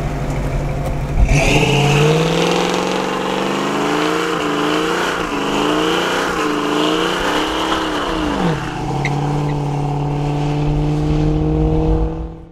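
First-generation Ford Mustang fastback idling, then revving hard into a burnout about a second in. The engine's pitch rises and wavers over the screech of the spinning rear tyres for about seven seconds, then drops back to a steady idle, and the sound fades out at the end.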